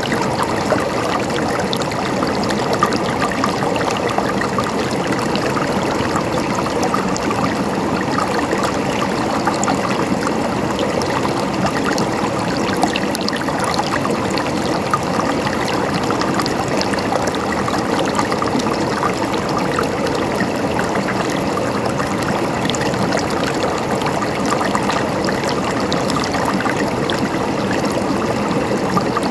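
Flowing water in a stream, running and trickling steadily with a dense babble of small splashes.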